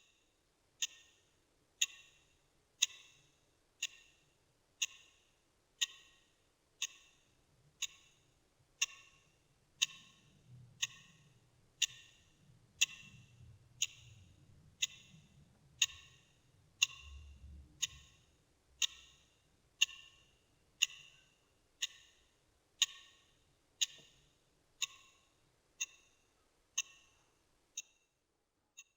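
Clock ticking up close, a steady one tick a second, each tick a sharp click with a brief ring.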